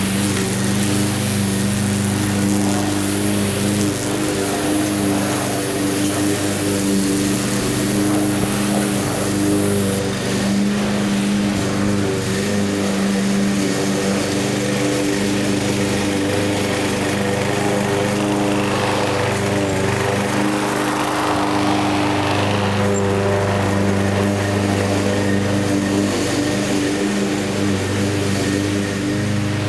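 Petrol lawn mower engine running steadily at constant speed, close by. A rushing noise swells for a few seconds about two-thirds of the way through.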